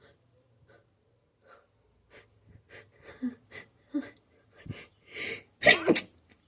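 A person's short, catching breaths, about two or three a second, building into a longer inhale and then a loud sneeze near the end.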